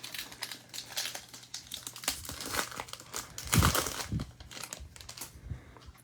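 Plastic trading-card pack wrapper being torn open and crinkled by hand: an irregular run of crackling rustles, loudest about three and a half seconds in.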